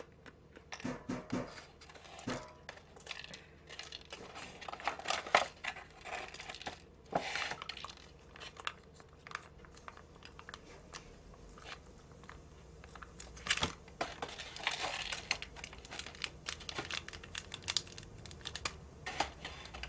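Plastic seasoning sachets and the foil lid of an instant cup noodle being handled and crinkled in short, scattered bursts, with tearing as a small sachet is ripped open near the end.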